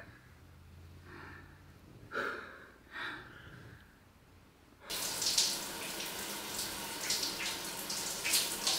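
Faint breathing and soft kissing sounds, then about five seconds in a shower suddenly comes in loud: a steady spray of water running.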